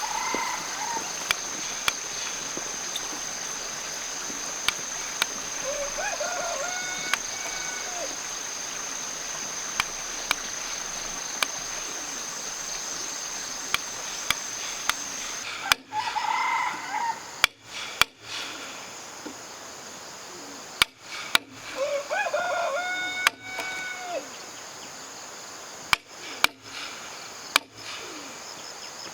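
Rooster crowing about four times, each crow rising and then held, over a steady high insect drone that stops about halfway through. Short sharp taps or knocks sound throughout.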